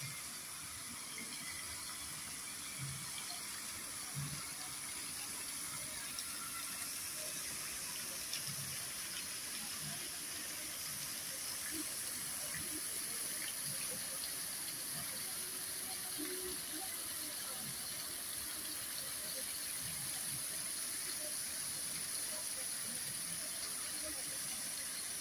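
Park fountain's vertical water jets falling and splashing into the shallow pool below, a steady rush of water noise.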